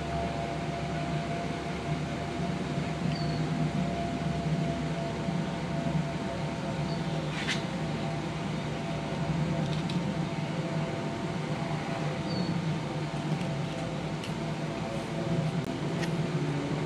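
Steady mechanical hum, like a fan or motor running, with a couple of faint clicks.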